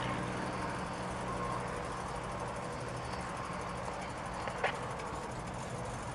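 Piper Cherokee's single piston engine idling steadily on warm-up, propeller turning, with a single short click about four and a half seconds in.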